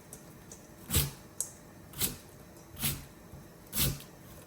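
Kitchen utensil knocking and scraping in a cooking pot, four short strokes about a second apart.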